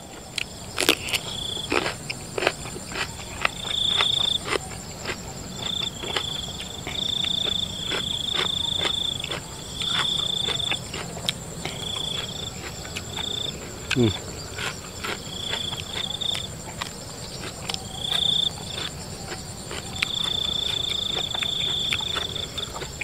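Crickets trilling in repeated high bouts, each about a second long, over a constant very high insect whine. Many short crisp crunching clicks of someone chewing raw cucumber run alongside.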